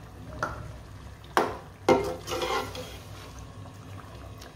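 Metal slotted spatula stirring chicken in a thin masala gravy in an aluminium pan, scraping and clacking against the pan. Sharp knocks come about half a second in and twice more around a second and a half in, over a low steady hum.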